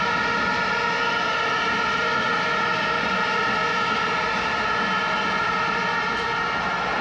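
Packed basketball-arena crowd making a loud, sustained din of many held tones at once, like a mass of whistles or horns. Near the end the held tones stop and give way to a general crowd roar.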